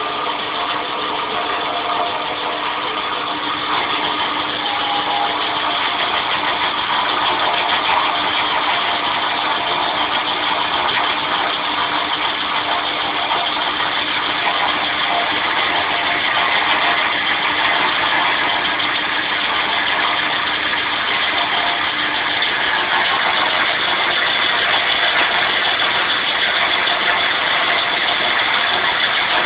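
Milling machine spindle running steadily with a boring head cutting, the head fed down by the CNC-controlled Z-axis to open up a hole. A low steady hum under it fades out about three quarters of the way through.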